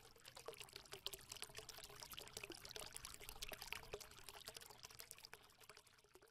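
Faint, dense crackling and trickling, like liquid being poured, that cuts off abruptly near the end.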